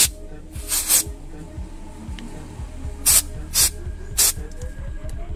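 Aerosol can of carpet cleaner sprayed onto an engine's oil control valve in a series of short hissing bursts, about five, two of them close together about a second in. Background music plays underneath.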